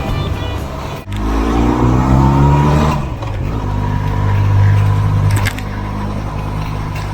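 Benelli TRK 502 X motorcycle's parallel-twin engine accelerating hard, its pitch rising for about two seconds, then dropping at a gear change and pulling steadily before the throttle eases off about two seconds from the end.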